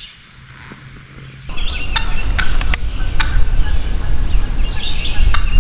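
Eastern wild turkey gobbler gobbling in spring, with songbirds chirping and a loud low rumble beneath. The sound jumps up about a second and a half in, after a quiet start.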